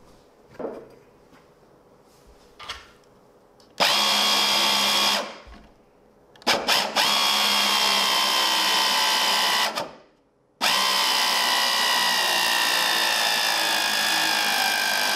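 775 DC motor driving a 3D-printed external gear pump, running with a high steady whine, switched on three times: briefly about four seconds in, for about three seconds from six and a half seconds, then from about ten and a half seconds on with its pitch slowly falling. The gears are rubbing against the acrylic top lid, leaving melting damage.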